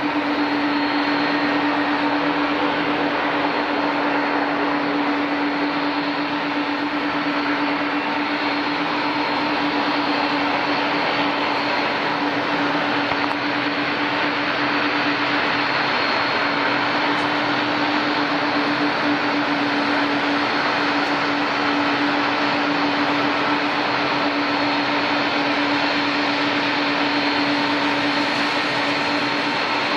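Airliner turbine running steadily at an airport: a constant noise with a steady low hum and a fainter high whine that hold unchanged.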